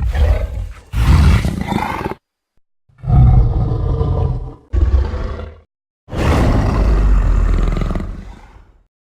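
Gigantopithecus giant-ape creature sound effect: five separate low roars with short silences between them, the last one the longest and trailing off.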